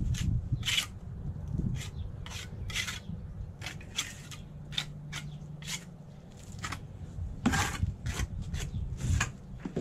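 Margin trowel scraping and spreading mortar across the back of a thin stacked-stone veneer panel, in short repeated strokes about one or two a second, the trowel's edge rasping on the stone.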